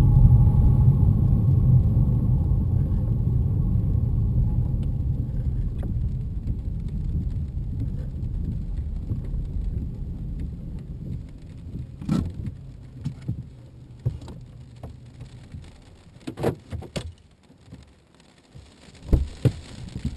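BMW E90 driving and slowing down: road and engine rumble dies away while a high-pitched whistling whine fades out over the first few seconds. The owner hears this whine whenever the car moves in gear, mostly under load, and has not traced its cause. Then scattered sharp clicks and knocks.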